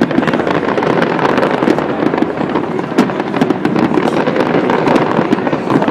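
Large fireworks display going off: a continuous rapid barrage of overlapping bangs and crackles with no let-up.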